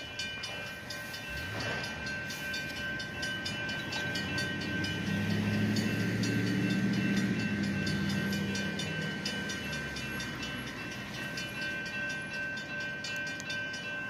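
Railroad grade-crossing bell ringing at a fast, even beat for about fourteen seconds. A train's low diesel rumble swells near the middle and fades again.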